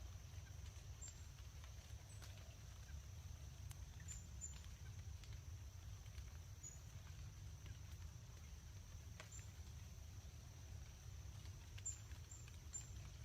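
Faint ambience of light rain under trees: scattered soft drips pattering. A steady high-pitched tone, a low rumble and a few brief high chirps sound alongside.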